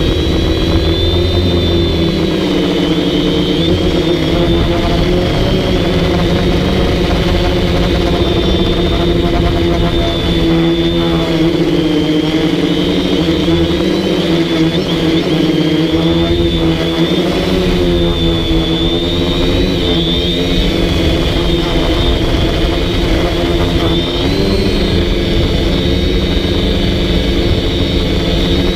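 DJI Flamewheel F450 quadcopter's electric motors and propellers running steadily in flight, heard close up from a camera on the drone itself: a loud buzz with a high whine on top whose pitch wavers up and down as the motors speed up and slow.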